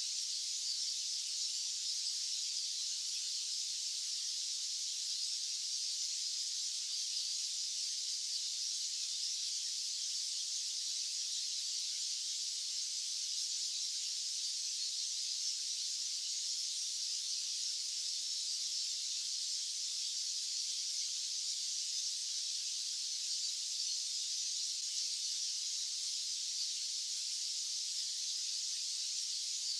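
White noise: a steady, high-pitched hiss with no low rumble, unchanging throughout.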